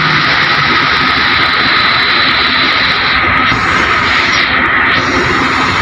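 Loud, steady machinery noise from container cranes at work loading cargo, a rushing drone with a steady high-pitched whine running through it.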